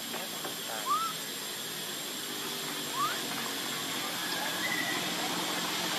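A baby monkey gives two short, high squeaks about two seconds apart, the first arching up and falling back, the second a quick upward sweep, over a steady background hiss.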